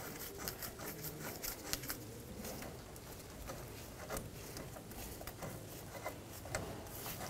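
Faint scattered clicks and rubbing as gloved hands thread a brake caliper bracket's bolts in by hand.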